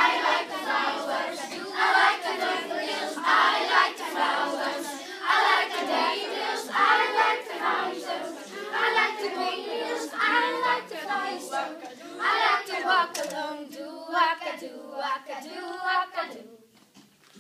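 A children's choir of primary-school pupils singing a song together; the singing stops about a second before the end.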